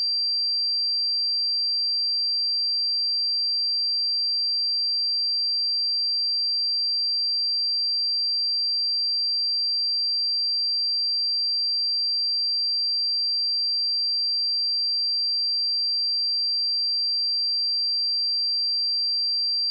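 A pure 4715 Hz sine-wave test tone, one steady high-pitched whistle held at constant pitch and level.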